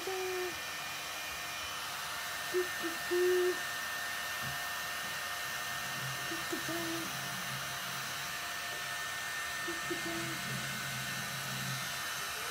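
Steady airy whoosh of a fan-driven appliance running, with a few short low hoot-like tones over it, the loudest about three seconds in.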